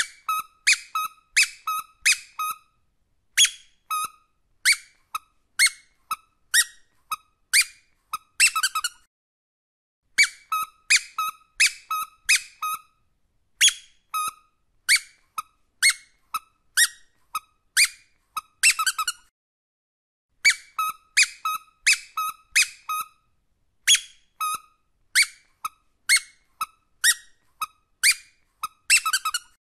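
Rubber squeaky dog toy squeezed over and over: short, high squeaks at about one or two a second. They come in runs that each end in a quick flurry of squeaks, with brief pauses between runs.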